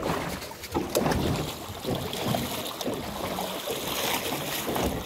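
Sea water lapping and splashing against a small fishing boat's hull, with wind buffeting the microphone.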